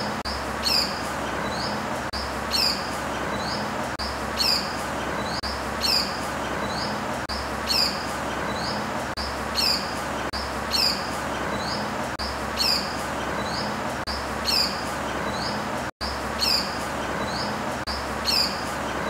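A bird call repeated at a very even pace, about every two seconds: each a quick group of short, high, falling notes, over a steady background hiss.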